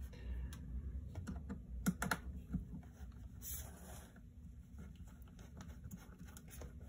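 Scattered light clicks and taps of a small precision screwdriver and hands on a MacBook Pro's aluminium bottom cover while its screws are being removed, with a brief scrape about three and a half seconds in.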